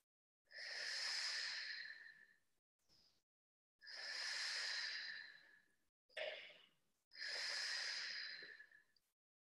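A woman breathing heavily into a close headset microphone: three long, noisy breaths about three seconds apart, with a short, sharp breath between the second and third, paced to the effort of a seated core exercise.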